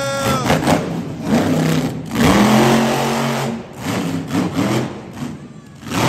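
Monster truck engine revving hard: about two seconds in its pitch sweeps up and holds high for over a second, then drops away.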